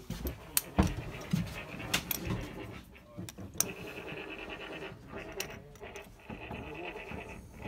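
Handling noise in a boat's engine compartment: scattered clicks, knocks and rustling as hands and a camera move about among the hoses, with a faint steady high tone in the second half.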